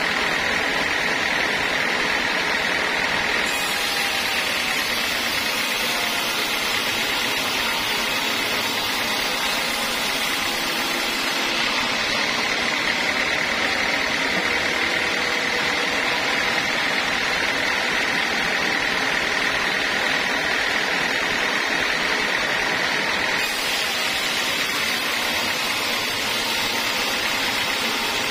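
Large band sawmill cutting a teak log lengthwise: the motor-driven band blade runs steadily through the wood, making a continuous, dense rasping whine.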